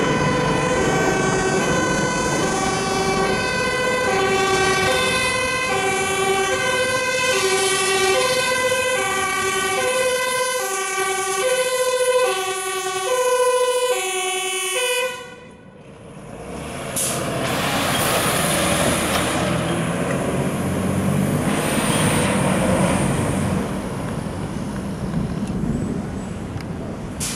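Dutch fire engine's two-tone siren, alternating high and low notes each held about half a second. About halfway through the siren stops abruptly, leaving the rushing engine and tyre noise of the truck going by.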